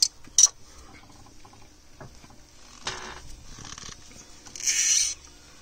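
Hands handling a removed, fuel-filled old fuel filter: a couple of sharp clicks at the start, faint scraping, and a short rushing hiss about five seconds in.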